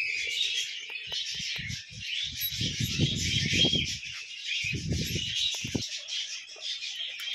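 Many small birds chirping and chattering continuously. Low muffled rumbles come and go beneath them, loudest a few seconds in.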